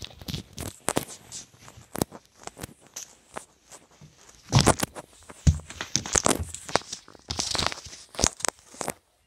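Handling noise of a covered phone microphone: irregular rustling, scraping and sharp knocks as the device is carried and rubbed against fabric. The noise is loudest about halfway through and near the end, and it stops abruptly just before the end.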